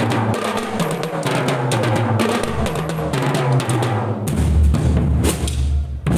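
Marching drum band practising: rapid snare and tenor drum strokes, with deep bass-drum beats coming back in strongly about four seconds in.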